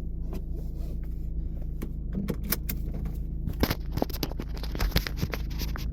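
Inside the cabin, the 2009 Honda Fit's four-cylinder engine and leaking exhaust make a steady low drone. Sharp, irregular clicks and rattles come over it, thickest in the second half.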